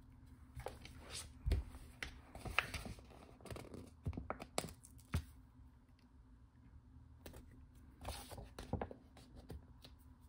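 Stickers being peeled from a paper sheet and pressed onto planner pages: quiet paper rustling and peeling with scattered soft taps and ticks.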